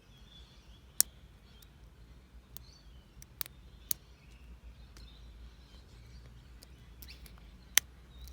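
Big, sharp clicks from a Master Lock 7040 padlock being picked, its core working against a very strong actuator spring: two loud clicks, about a second in and near the end, with a few smaller ticks between. Faint birdsong in the background.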